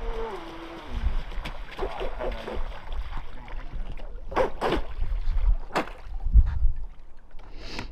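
Brushless electric motor of a Pro Boat Sonicwake V2 RC speedboat (Rocket 1700KV on 6S), its whine falling in pitch over the first couple of seconds as it throttles down. Wind rumbles on the microphone throughout, with a few short noisy bursts around four to six seconds in.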